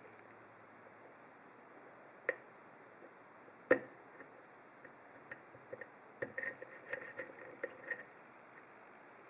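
Small metal clicks and ticks as a lock pick and tension wrench work the pin stack of a Lockwood 334C45 padlock: two sharp clicks, then a quick run of fainter ticks.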